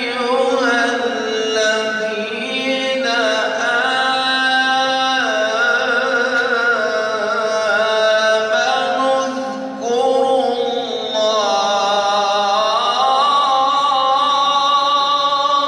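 A man reciting the Quran in the melodic Egyptian mujawwad style, drawing out long ornamented notes that rise and fall, with a short break for breath about ten seconds in.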